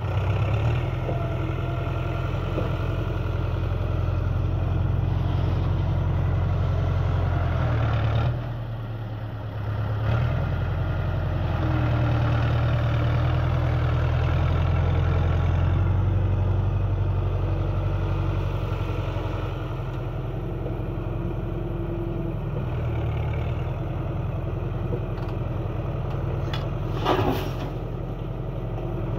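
Tractor's diesel engine running while it manoeuvres and lifts its rear-mounted loader bucket full of sand, its note dipping briefly about eight seconds in and easing off later on. Near the end there is a single short sharp knock.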